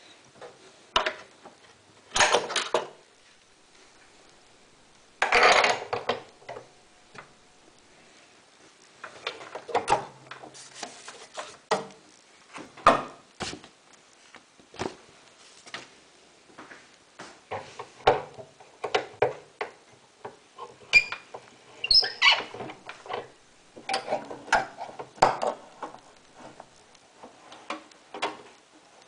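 Irregular knocks and clatters of hard objects being handled, with a few longer scraping or rustling bursts between them.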